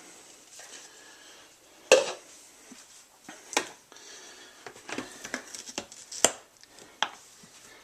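Hard plastic clicks and knocks from a Vitamix 5200 blender container and its lid being handled and fitted into place. The taps come irregularly, with a few sharper knocks standing out.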